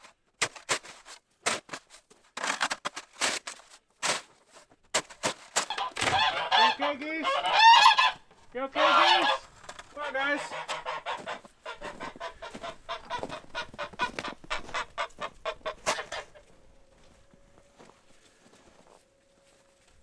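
Snow shovel scraping and chopping at packed snow in many quick strokes, with white domestic geese honking loudly for a few seconds near the middle. The strokes stop about three quarters of the way through and it goes nearly quiet.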